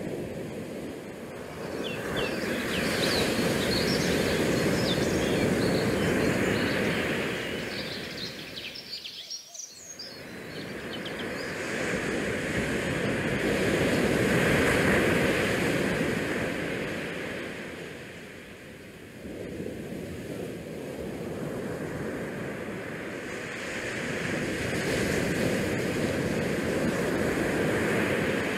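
Wind and sea noise on a cruise ship's open deck, with the rush of the ship's wake along the hull. It swells and fades every several seconds, with a thin, wavering high whistle during the first swell and a brief sharp drop about nine seconds in.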